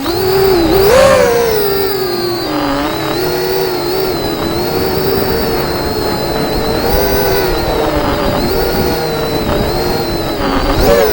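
Racing miniquad's electric motors and propellers whining, the pitch rising and falling with throttle, over low wind rumble.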